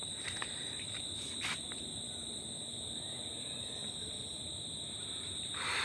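Crickets chirping in a steady, high, unbroken trill, with a brief rustle near the end.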